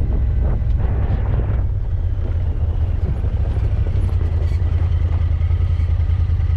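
A vehicle engine running steadily at speed under wind and road rush, with a brief louder rush about a second in.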